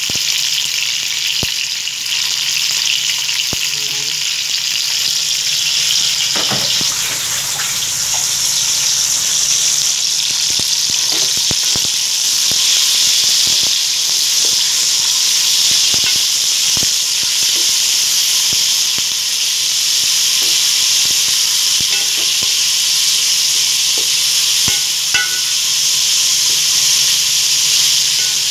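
Sliced chicken breast sizzling in hot oil with onions and garlic in a stainless steel wok: a steady frying hiss, with a wooden spatula now and then clicking and scraping against the pan as it stirs.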